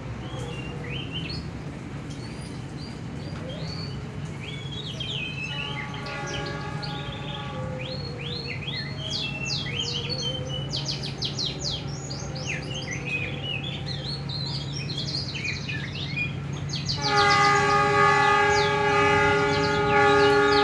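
Songbirds chirp in quick, rapid downward sweeps throughout, over a low steady hum. About three-quarters of the way through, a loud steady horn-like tone sets in and becomes the loudest sound.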